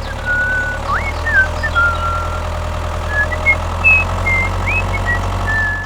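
A steady low engine-like hum, like a small motor idling, runs throughout. Over it come about a dozen short, high whistled notes at irregular intervals, some sweeping quickly upward.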